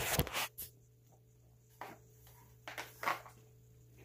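Handling noise from a phone being moved: a loud rubbing rustle against the microphone at the start, then a few light knocks and taps as it is set down and items are placed on the desk.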